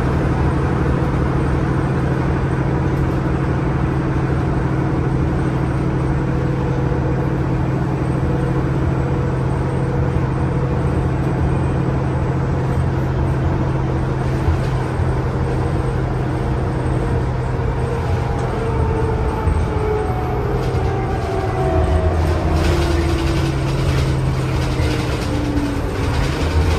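A NovaBus LFS CNG city bus in motion, heard from on board. The Cummins ISL-G six-cylinder natural-gas engine and Allison six-speed automatic run with a steady low drone. In the last third, a drivetrain whine falls steadily in pitch, and light rattles come in near the end.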